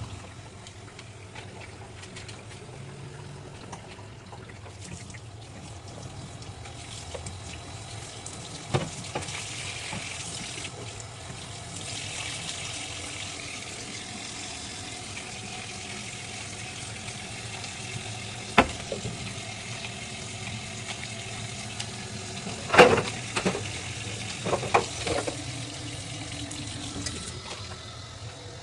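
Water running and splashing in a kitchen sink during washing-up or cleaning, with a few sharp knocks and clatters of items handled in it, the loudest about three quarters of the way through.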